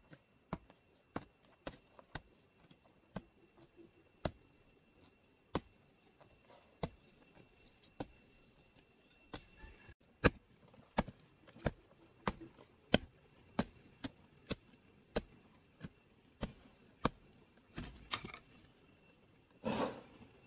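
A hand hoe chopping into packed earth in a long run of dull strikes, about one a second and coming faster in the second half. Near the end comes a louder rustle of loosened soil being crumbled and scooped by hand.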